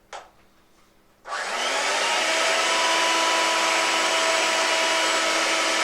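Electric food mixer with whisks fitted, switched on about a second in and running steadily with a motor whine.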